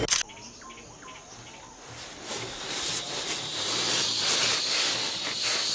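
Outdoor ambience: a steady high hiss with faint ticks, growing louder about two seconds in.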